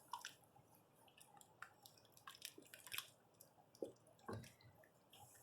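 Beef stew thickened with brown gravy in a pot, giving faint, irregular soft pops and squelches.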